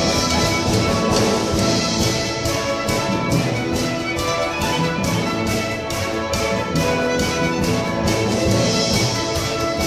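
Violins of a string quartet and a string orchestra playing an Irish-style tune live, over a quick, even beat.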